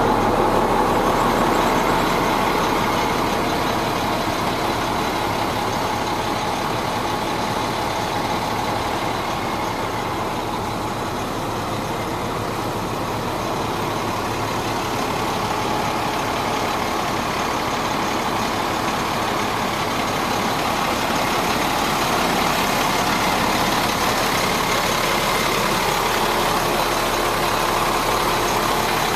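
A 2003 International 4300 truck's DT466 diesel engine idling steadily.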